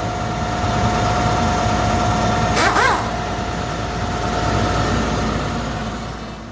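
Pneumatic impact wrench running steadily with a whine and air hiss, spinning on the bolts of a motor grader's tandem drive housing; its pitch rises and falls briefly about three seconds in, and the sound fades near the end.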